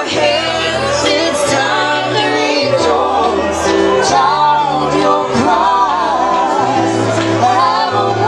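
Gospel song with a voice singing a wavering melody over sustained bass and instrumental accompaniment.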